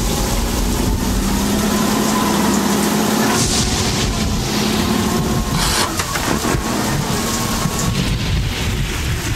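A semi-truck's engine running with a steady low drone as the truck pulls in, over the even hiss of falling rain.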